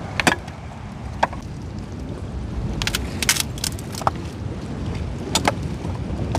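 Sticks being chopped into small pieces for firewood: irregular sharp cracks, several close together about three seconds in, over a steady low rumble of wind and sea.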